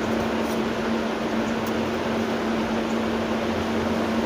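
A steady hum with an even hiss, unchanging throughout, like a fan or air conditioner running in a small room.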